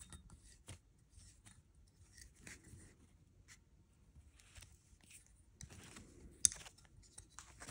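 Faint handling noise of small hand tools: scattered light metal clicks and brief paper-towel rustles as a brass rod clamped in locking pliers is worked with a small T-handle tool, with one sharper click about six and a half seconds in.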